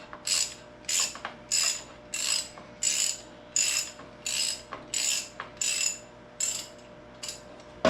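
Hand ratchet wrench clicking in short strokes, about ten back-and-forth swings at an even pace of roughly one and a half per second, as it backs out loosened exhaust manifold bolts. The strokes stop shortly before the end, followed by a few faint ticks and a sharp metal click.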